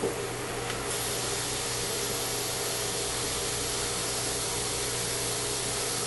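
A steady hiss that grows stronger about a second in and then holds even, over a low steady electrical hum, with a short click at the very start.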